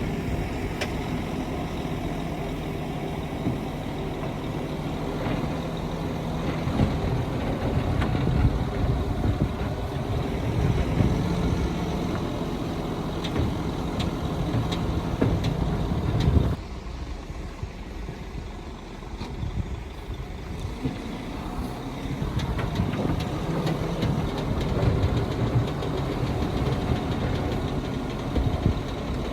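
Heavy diesel engines of earthmoving machinery running, with scattered sharp clanks. About sixteen seconds in the sound drops off abruptly and then builds back up.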